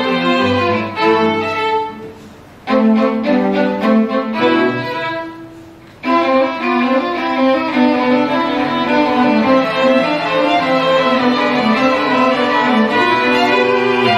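String quartet of two violins, viola and cello playing. The music dies away twice and each time the players come back in suddenly and loud, about two and a half seconds in and again about six seconds in, then play on steadily.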